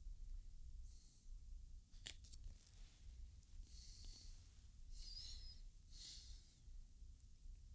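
Near silence: low room hum with a few faint, soft rustles and one sharp click about two seconds in.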